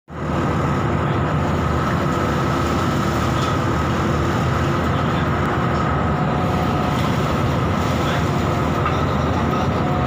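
Offshore tug's engines running steadily under tow load: a loud, even machinery drone with a constant hum through it.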